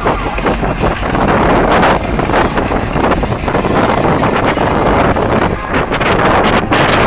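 Strong wind buffeting the microphone: a loud, gusty rushing with rapid flutters and a low rumble throughout.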